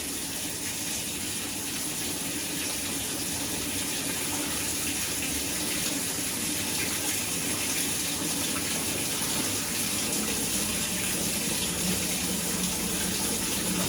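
Amana top-load washing machine (model NTW4516FW1) filling: water rushes steadily through the inlet valve into the tub. This is the fill step of the machine's diagnostic test cycle, and the sound grows slightly louder as it goes on.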